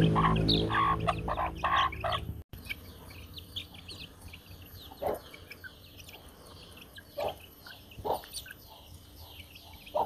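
Background music that cuts off abruptly about two and a half seconds in, then young chickens peeping repeatedly and giving a few louder clucks as they peck at grain.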